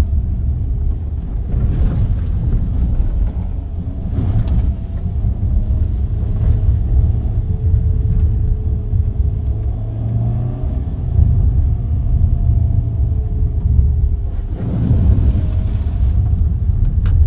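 Cabin sound of a Volkswagen Tiguan driving slowly on a rough dirt track: a steady low rumble of engine and tyres, the engine note rising and falling a little, with a few brief knocks as it goes over bumps and a louder rushing noise near the end.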